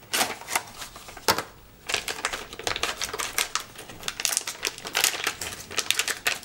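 Instant pack film being unwrapped: a few sharp clicks as the cardboard box is opened, then, from about two seconds in, a dense run of crackles as the foil pouch is crinkled and torn open.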